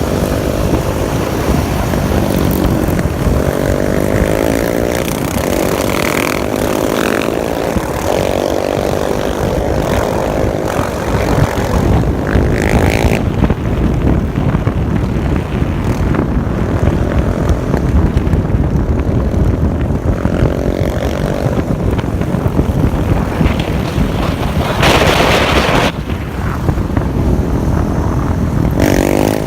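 Sport quad engines running and revving up and down on the move, with heavy wind rumble on the microphone. A short louder burst comes near the end.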